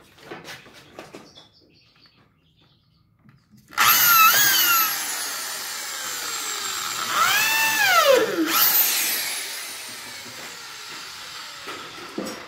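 Corded electric drill boring into wood: a few light knocks, then about four seconds in the motor starts with a rising whine. It dips and picks up again around the middle, then runs on more quietly.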